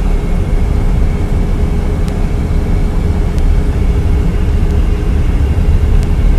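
Steady low road rumble of a moving vehicle, heard from inside the cabin while driving, with a faint steady hum above it.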